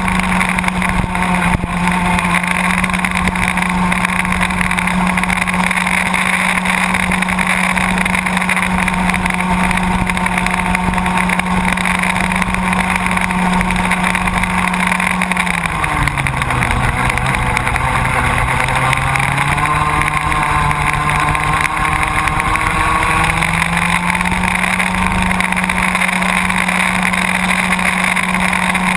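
Baby ROK kart's small single-cylinder two-stroke engine, heard on board at racing speed: a steady high buzz held on the straight, then a drop in pitch about halfway as the kart slows for a corner, climbing back in steps to full revs a few seconds later.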